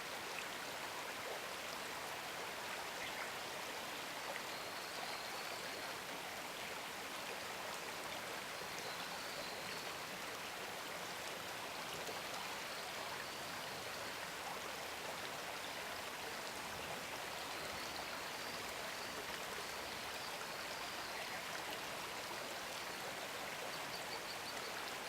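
A river flowing, a steady, even rush of water, with a few faint high chirps now and then.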